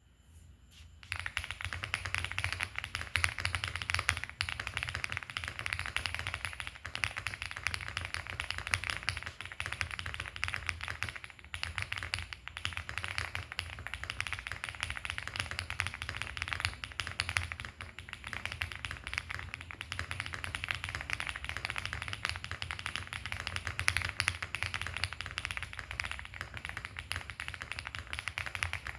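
Fast, continuous typing on a Womier SK75 mechanical keyboard fitted with linear HMX Hyacinth v2 switches, PBT keycaps, full foam and an FR4 flex-cut plate. The typing starts about a second in.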